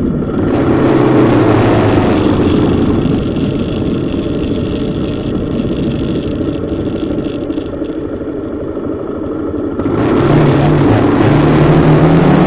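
Motorcycle engine running as the bike rides along, picked up by a camera mounted on the motorcycle together with a steady rush of wind and road noise. About ten seconds in the engine note gets louder and rises in pitch.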